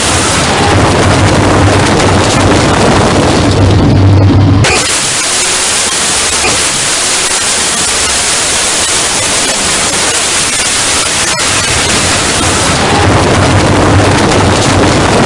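Loud, harsh, distorted static-like noise from an edited punishment sound effect. It changes abruptly about four and a half seconds in and swells again near the end.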